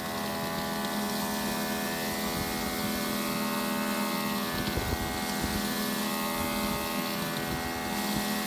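Greenworks Pro 2300 electric pressure washer's motor and pump kicking in, then running with a steady hum under the hiss of the water spray.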